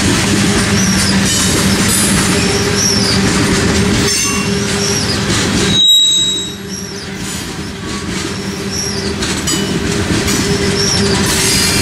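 Freight train of tank cars rolling past: steady rumble of steel wheels on rail with repeated short high squeals and some clickety-clack. The sound drops out for a moment about halfway through, then the rolling noise picks up again a little quieter and builds back up.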